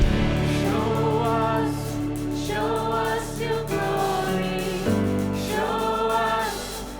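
Contemporary worship song: voices sing held notes over sustained band accompaniment, and the chord shifts about five seconds in.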